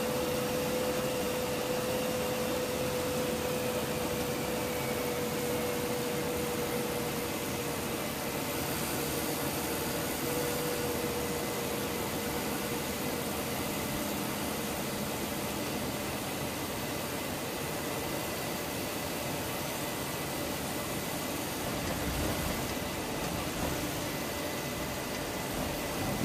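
Steady cockpit noise of a KC-135 Stratotanker landing: a hiss of airflow and engine noise with a faint engine whine that falls slightly in pitch over the first several seconds.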